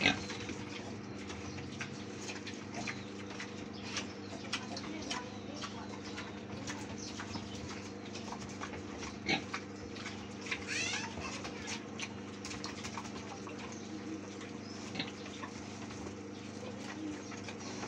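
A sow and piglets chewing and rooting through leafy greens: irregular soft crunching, snuffling and leaf-rustling clicks, over a faint steady hum. A brief high warbling call about eleven seconds in.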